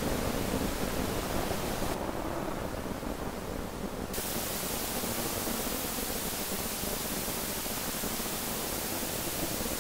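Steady static-like noise hiss spread evenly from low to high. About two seconds in, the top end drops away for roughly two seconds, then returns.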